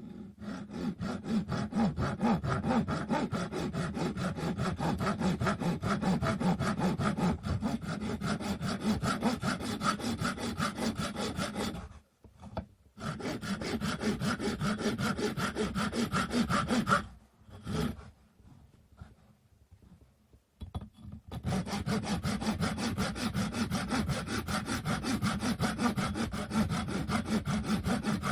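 Hand saw cutting through a wooden stick in quick, even back-and-forth strokes. It comes in three runs, with a short stop about twelve seconds in and a longer pause of a few seconds after about seventeen seconds.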